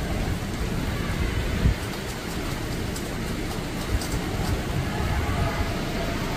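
Typhoon rain falling steadily, with gusting wind buffeting the microphone as a low rumble.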